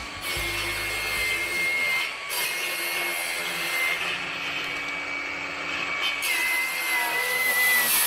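Circular saw cutting through old weathered wooden deck boards: a steady high whine of the motor over the rasp of the blade in the wood, dipping briefly about two seconds in.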